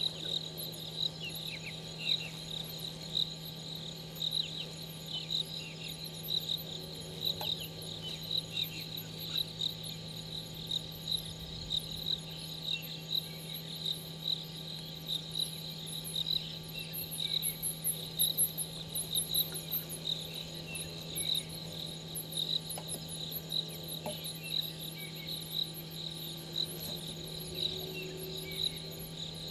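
Night insect chorus: a cricket chirping steadily at about two chirps a second over a dense, high, shrill chorus of other insects, with a steady low hum underneath.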